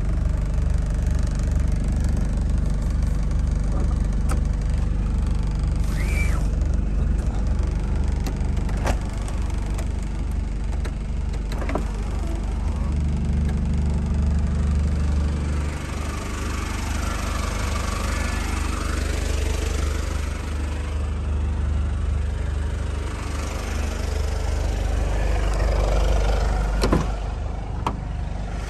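Mazda Bongo Friendee's WL-T 2.5-litre turbo-diesel four-cylinder idling steadily with an even low throb. A few sharp clicks cut across it, the loudest near the end.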